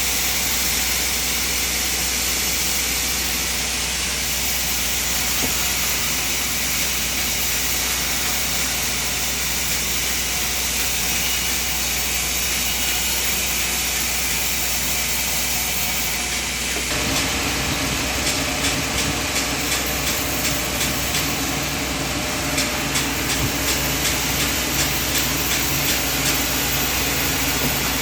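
Sawmill machinery running steadily with a loud hiss. About 17 s in the sound changes and a rapid rattle of ticks sets in.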